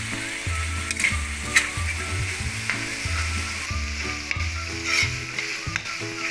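Tomato and smoked-fish sauce sizzling in a wok as a spatula stirs it, scraping the pan with a few sharp clicks. Background music with a steady bass line runs underneath.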